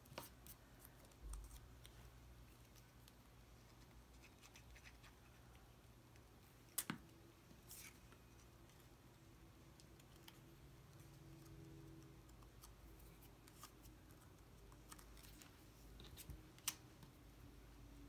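Near silence with a few light clicks and soft ticks from small cardstock pieces being handled and pressed together while they are glued.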